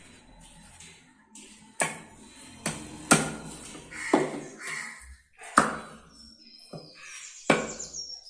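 Heavy butcher's cleaver chopping through a goat's front leg onto a wooden log chopping block. There are about six or seven sharp chops, irregularly spaced roughly a second apart.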